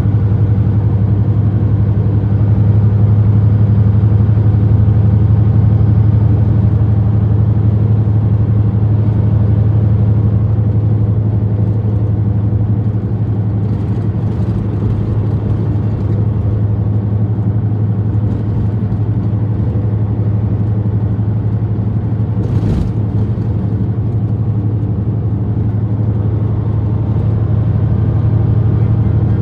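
Semi truck's diesel engine droning steadily at highway cruising speed, heard inside the cab along with road noise. There is a single short knock about three quarters of the way through.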